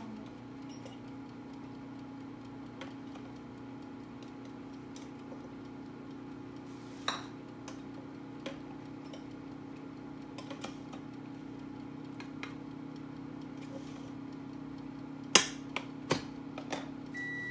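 Steady low kitchen hum under a few light clinks and knocks of a pot lid and cookware on the stove. The two loudest knocks come about two seconds before the end.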